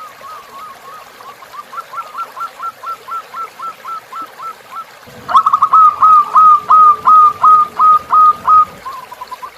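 Zebra dove (perkutut) cooing: a run of short whistled coo notes, about four a second. A softer run comes first; about five seconds in, a louder run opens with a quick stutter.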